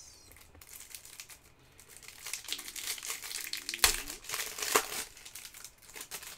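Cellophane wrapper of a basketball card pack crinkling and tearing as it is ripped open by hand. There is a sharp snap about four seconds in, the loudest moment, and another a second later.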